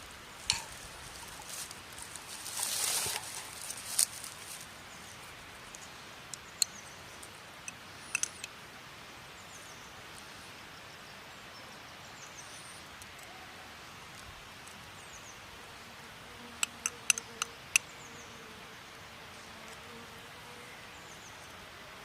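Outdoor forest ambience: a steady background hiss with faint, high bird chirps, a brief rustle about three seconds in, and scattered sharp clicks, with a quick cluster of about five of them near the end.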